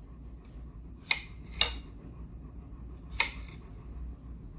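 Three sharp clinks of dishware against small glass dessert cups while strawberries are being added: two about half a second apart near the start, a third about three seconds in, over a faint low hum.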